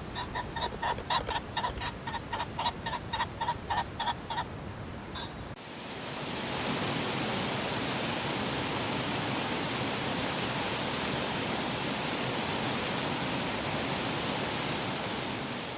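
An animal calling in a fast series of short, identical pitched notes, about four a second, for the first four seconds. Then, after a cut, a steady rushing hiss that fades near the end.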